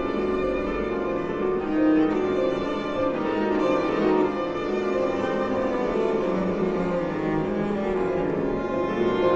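Piano quintet of violin, viola, cello, double bass and Steinway grand piano playing contemporary classical chamber music, the bowed strings sounding together with the piano without a break.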